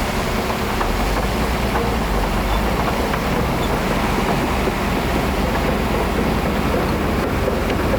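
Heavy diesel construction machinery running steadily, a constant low engine rumble under a broad noisy hiss.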